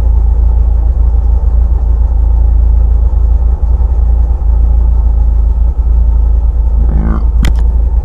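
Rally car engine idling, a steady low rumble. Near the end, a few sharp knocks as the camera is handled.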